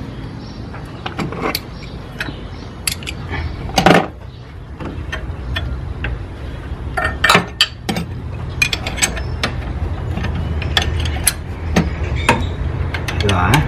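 Irregular metallic clicks and clinks of hand tools and parts being handled on a diesel engine's cylinder head. A sharper knock comes about four seconds in and two more around seven to eight seconds, over a steady low hum.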